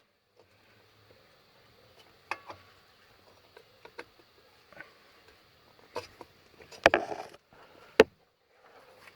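Scattered metal clicks and knocks from a gear shifter bracket being worked back onto the gearbox linkage by hand, with two louder knocks near the end.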